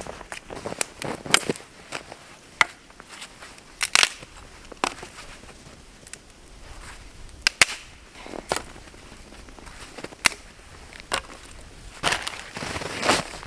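Dry wood snapping and cracking in sharp, irregular snaps, about a dozen of them, coming faster near the end.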